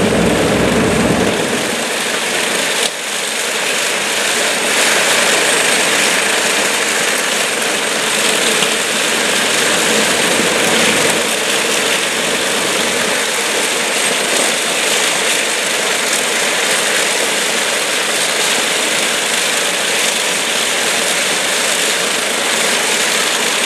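Lockheed Super Constellation's Wright R-3350 radial piston engines running steadily on the ground just after start-up, propellers turning. The sound is loud and even; its deep low rumble thins out about a second and a half in.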